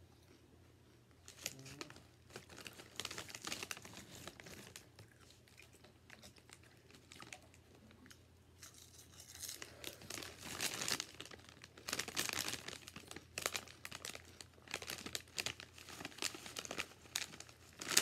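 A foil bag of All Dressed potato chips crinkling and rustling in irregular bursts as a hand reaches into it and handles it. It starts about a second and a half in and gets busier from about halfway through.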